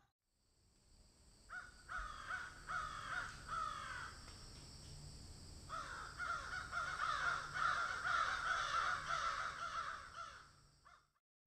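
Birds calling: short calls that fall in pitch, about two a second at first, then after a brief pause many calls overlapping as a flock, over a steady hiss of ambience.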